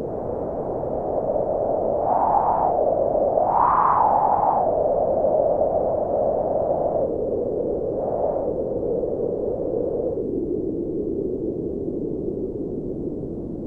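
Wind noise blowing steadily, with gusts swelling and rising in pitch about two seconds in, again around four seconds and near eight seconds, then settling to a lower hiss.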